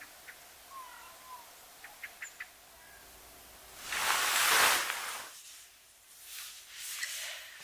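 Faint bird chirps, then a louder rustling swish about four seconds in and softer rustles near the end.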